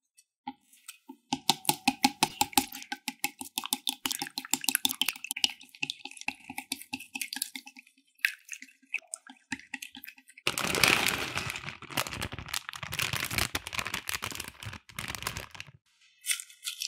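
Wooden chopsticks beating eggs and milk in a glass bowl: a fast run of clicks against the glass, with the bowl ringing, for several seconds. About ten seconds in comes a dense rustling for about five seconds as shredded cabbage salad mix is worked into the egg, then a few light chopstick taps near the end.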